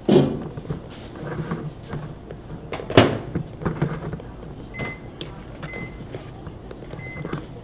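Microwave oven in use: a knock, then a sharp clack about three seconds in as the door is shut, followed by four short keypad beeps as the cooking time is set.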